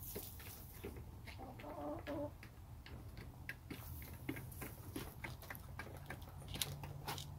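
Hens pecking at feed, a scatter of small sharp ticks, with one short chicken call about a second and a half in.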